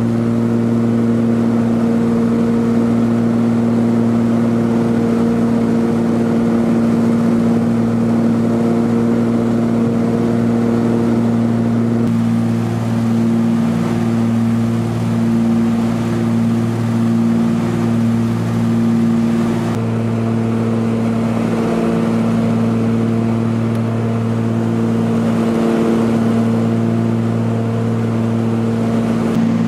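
Britten-Norman Islander's twin piston engines and propellers droning steadily in flight, heard inside the small cabin. About midway the drone takes on a slow, regular pulsing.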